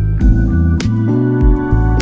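Background music: a moving bass line under sustained chords, with sharp drum hits at a fairly regular beat.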